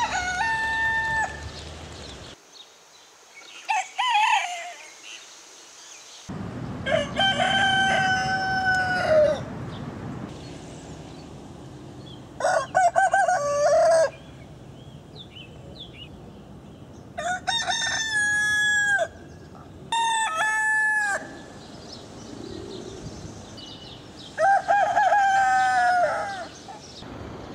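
Roosters crowing one after another, different birds in turn: about seven cock-a-doodle-doos, each a second or two long, with the background changing abruptly between some of them.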